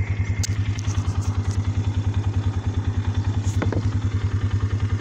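ATV engine idling steadily with an even, rapid pulse of about nine beats a second. A few light clicks come about half a second in.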